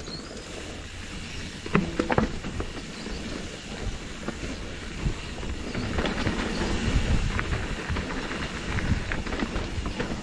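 Mountain bike descending a rocky downhill trail: tyres crunching over stones and the bike rattling under a constant low rumble, with sharp knocks as it hits rocks about two seconds in and repeatedly through the second half.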